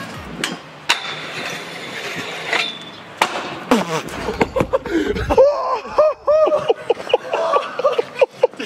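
Freestyle scooter landing a trick: a few sharp clacks of the deck and hard wheels hitting the ground, then the wheels rumbling over paving stones for about two seconds. After that, people whoop and shout excitedly in quick repeated calls.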